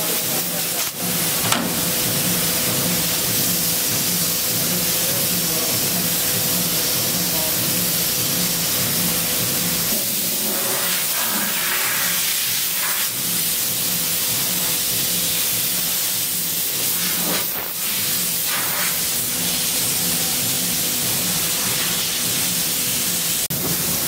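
Steady hiss of compressed air from air hoses and spray guns, with a low machine hum underneath.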